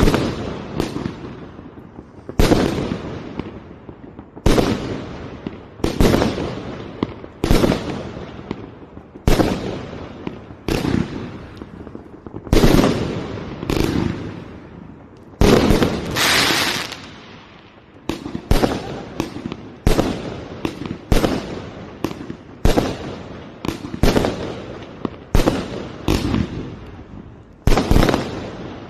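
A fireworks battery fires aerial shells in sequence, each one a sharp bang with a short crackling, fading tail. The shots come about every one and a half seconds at first and quicken to roughly one a second in the last ten seconds. A longer, denser crackling burst sounds about halfway through.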